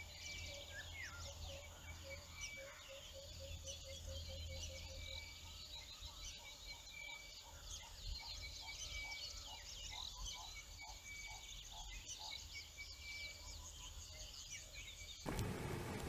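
Faint natural bush ambience: several birds chirping and whistling, with a soft low call repeated about four times a second for a few seconds and a later run of slightly higher repeated notes, over a low steady hum. Near the end it switches to a louder, even rushing noise.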